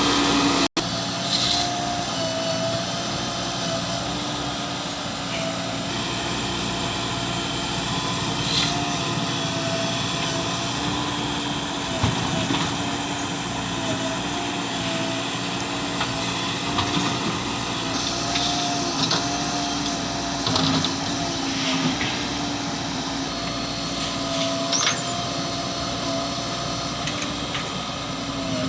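Diesel engine of a JCB 3DX Plus backhoe loader running steadily under work, with occasional knocks and clatters from the digging and loading of murum.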